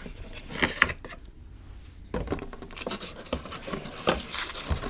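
Hands handling a die-cast and plastic toy vehicle and its box: small clicks, knocks, scrapes and rubbing of the toy parts and cardboard against a wooden tabletop, with a short lull about a second in.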